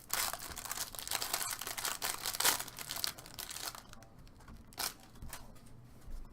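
A trading-card pack wrapper being torn open and crinkled by hand, a dense crackling that is busiest over the first four seconds, then one more short rustle near the end.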